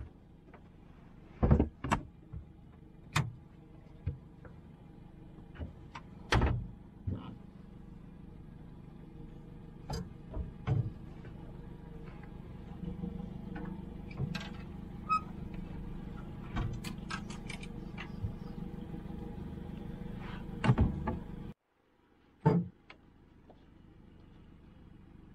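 Scattered knocks, clunks and clicks of fishing rods and gear being handled in an aluminium boat, over a steady low hum.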